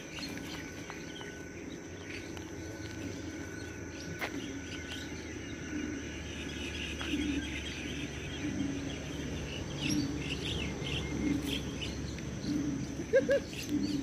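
Steady high-pitched insect drone with scattered bird chirps, busier in the second half, and a short louder sound near the end.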